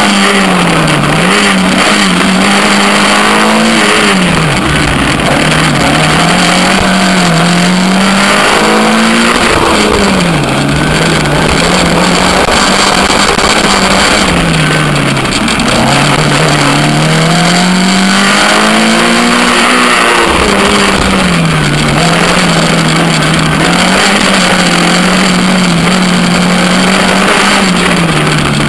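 Suzuki Swift GTi 1.3-litre twin-cam four-cylinder engine in a rally sprint car, driven hard: its note climbs and drops many times as the car accelerates and lifts off between corners, with a steady rush of wind and road noise underneath.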